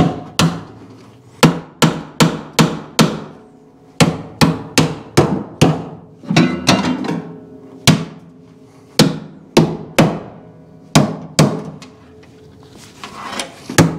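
Steel hammer blows on the bent sheet-metal radiator core support of a 1971 Opel GT, knocking the panel straighter. About twenty sharp, ringing metal strikes come in quick runs of two to six, with short pauses between them.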